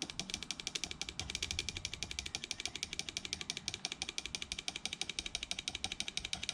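Subaru fuel injector clicking rapidly and evenly, about fourteen clicks a second, as it is pulsed open and shut from a 12-volt battery to flush cleaner through. It is a clogged injector, giving little more than a faint dribble.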